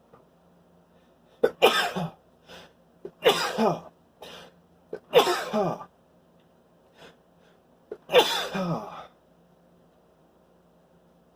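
A man sneezing four times in a fit, each sneeze a sharp burst falling away in pitch, with short breaths between and a longer pause before the last. The fit is brought on by snuffed Chhinkni sneezing powder.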